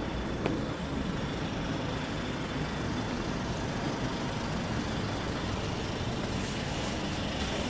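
Steady city street noise: a low traffic rumble and general outdoor hubbub, with a short click about half a second in.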